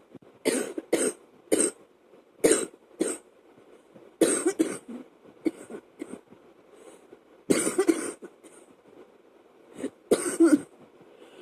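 Woman coughing in a fit from a chest cold, wet and chesty: several sharp coughs in quick succession, then longer bursts of coughing a few seconds apart. A fan runs faintly underneath.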